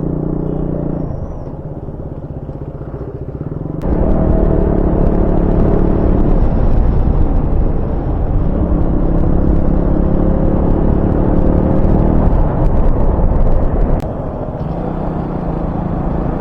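Motorcycle engine running while riding, its hum steady. There is a quieter stretch early on. About four seconds in, a much louder low rumble cuts in suddenly and drops back just as suddenly near the end.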